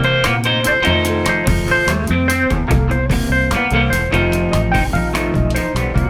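Background music: guitar over a drum kit keeping a steady beat.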